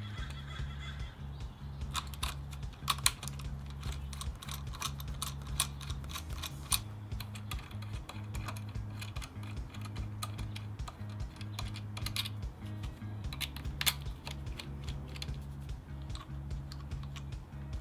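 Scattered sharp clicks and taps of small metal and plastic parts being handled as a GoPro is fitted to an aluminium handlebar mount, the loudest around three seconds in and again near the end. Background music with a steady low bass line plays underneath.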